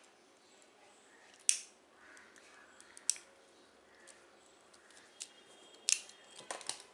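A flint-wheel lighter being struck in a few sharp clicks, the first the loudest, to melt and seal the end of the macrame cord wrapping. A quick cluster of softer handling taps follows near the end.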